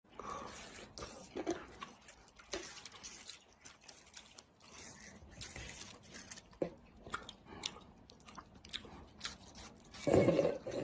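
A kitten and a person biting and chewing a watermelon slice: short crunches scattered irregularly, with a louder burst near the end.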